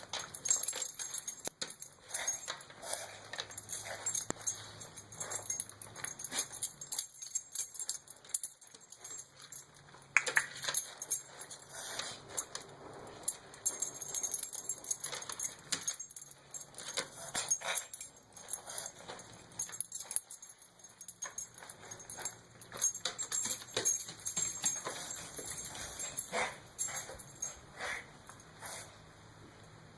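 A dog coughing and sneezing in repeated fits: many short, sharp bursts in irregular succession, with a brief lull about seven seconds in.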